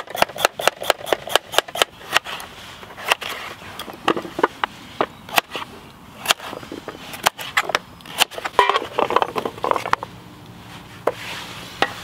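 Kitchen knife chopping root vegetables (potato, carrot, parsnip) into chunks on a board: a quick run of chops, about five a second, for the first two seconds, then slower, scattered chops with a stretch of scraping a little after the middle.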